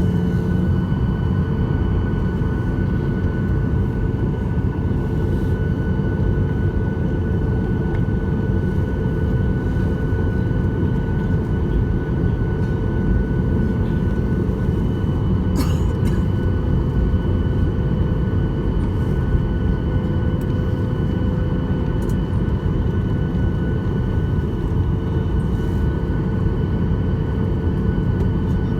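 Steady cabin noise of a Boeing 737-800 on the ground, with the engines running at low power: an even rumble with a constant whine of several steady tones. A single brief click comes about halfway through.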